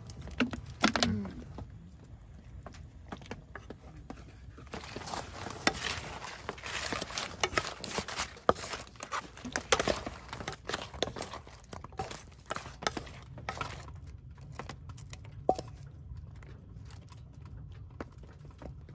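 Camp cooking sounds: a dense spell of small clicks and crackles from about five to fourteen seconds in, then sparser clicks, over a low steady rumble.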